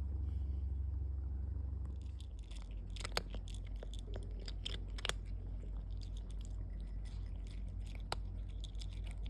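Cat chewing food: a run of irregular crisp crunches starting about two seconds in, over a low steady hum.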